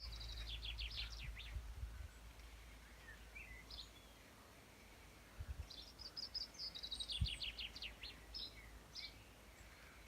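Small songbirds singing: a rapid series of high, chirping notes near the start and a longer, fuller song from about halfway in, with a few single calls between. A low rumble underlies the first couple of seconds.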